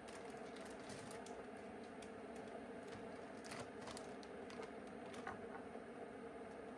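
Faint steady hum with scattered light clicks and taps, several close together about three and a half seconds in.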